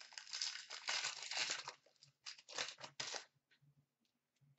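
Wrapper of an Upper Deck hockey card pack being torn open and crinkled in the hands for about three seconds, the last part in a few short separate crackles.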